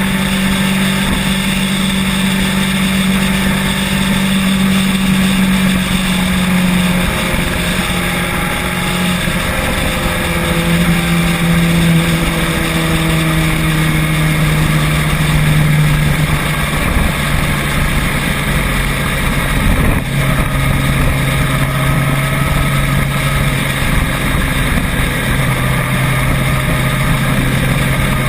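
Motor vehicle engine running on the move over steady road noise. Its low hum drops in pitch in steps several times, as with gear changes.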